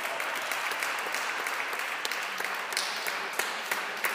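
Spectators applauding: many hands clapping at once in a dense, steady run of claps.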